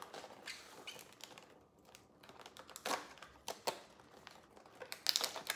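Small plastic toy packaging being handled and opened by hand: scattered clicks and crinkling, getting denser and louder near the end.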